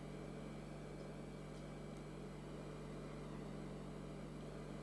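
Steady low electrical hum and hiss with no distinct sound event.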